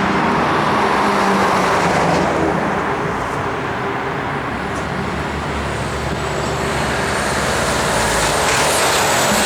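Steady road noise of a car being driven: tyre rumble and engine hum, dipping slightly in level midway.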